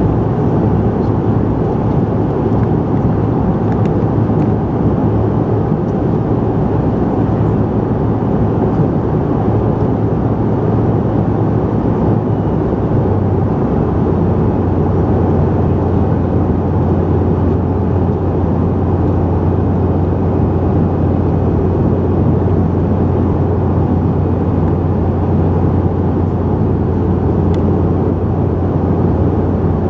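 Steady cabin noise of a CRJ700 airliner in cruise: an even rushing of airflow and engines with a low hum, which shifts slightly about halfway through.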